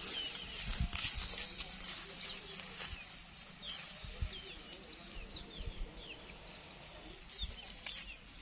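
Small birds chirping in short, quick calls scattered throughout, over a low rumble of wind and handling noise with a few light knocks.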